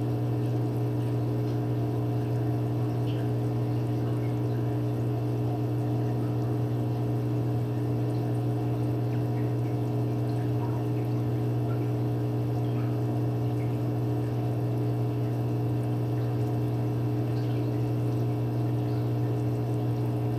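Aquarium filter pump running: a steady low hum with water trickling and splashing.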